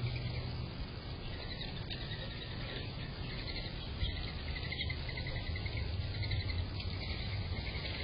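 A flock of birds chirping busily, many short repeated high calls overlapping, over a low steady hum.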